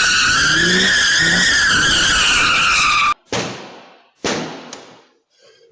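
Car tyres squealing, a loud screech wavering in pitch, which cuts off abruptly about halfway through. It is followed by two sharp hits, each dying away over about half a second, and fainter knocks near the end.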